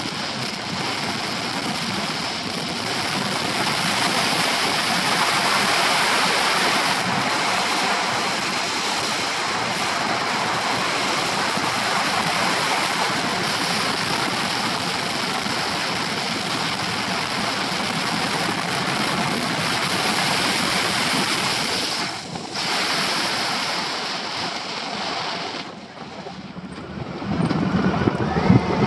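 Wind rushing over the microphone on a moving Honda Pan-European ST1100 motorcycle: a steady, loud hiss with no clear pitch. Near the end the rush briefly drops away as the bike slows, and the motorcycle's engine comes up underneath.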